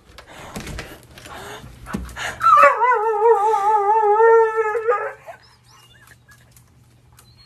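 A dog gives one long, wavering howl-like whine of about two and a half seconds, starting a little over two seconds in. Before it there are light rustling and clicking sounds.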